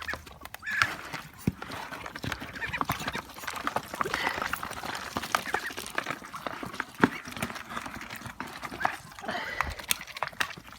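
Poultry feeding: rapid pecking and dabbling clicks at the feed, with a few short calls.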